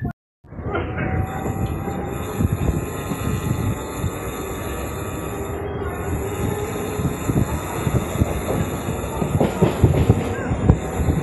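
Running noise of an electric suburban local train heard at its open doorway: a steady wheel-and-track rumble with frequent irregular clacks from the wheels over the rails. It follows a brief dropout just after the start.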